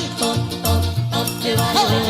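Background music: an upbeat Latin-style song with a bouncing bass line and a singing voice.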